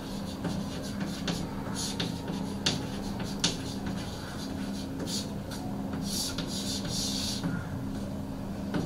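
Chalk writing on a chalkboard: a few sharp taps of the chalk in the first half, then longer scratching strokes later on, over a steady low hum.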